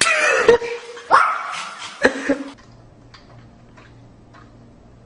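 A dog yelping and barking: a few loud, sharp calls in the first two and a half seconds, then it stops abruptly. A faint low hum and a few soft clicks follow.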